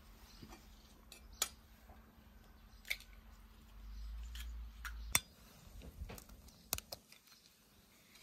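Eggs being cracked open with a kitchen knife over a bowl of mashed potatoes: several sharp taps of the blade on eggshell, spaced a second or more apart.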